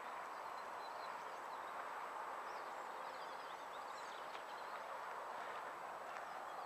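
Steady rush of a fast-flowing stream, with small birds chirping briefly from about two to four seconds in.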